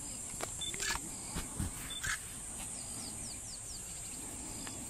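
Bush ambience: a steady high buzz with short, falling bird chirps repeating. Sharp clicks come about a second and about two seconds in, and there are a couple of low thumps around one and a half seconds in.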